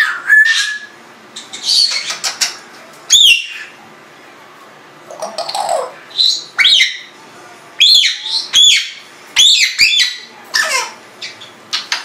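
Congo African grey parrot calling in a run of short, loud whistles that arch up and then down in pitch, mixed with sharp clicks and a lower squawk about halfway through.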